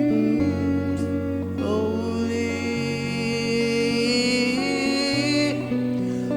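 Slow, soaking-style worship music: long sustained keyboard pad chords that shift a few times, with a voice singing long, gliding notes over them.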